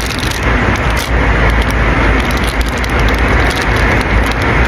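Steady jet airliner cabin noise: the engines' and air system's continuous rumble and hiss, with scattered small clicks over it.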